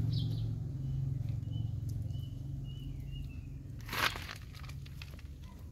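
Puppies scuffling and play-fighting on dry dirt and debris, rustling and scraping, with a sudden loud scrape about four seconds in.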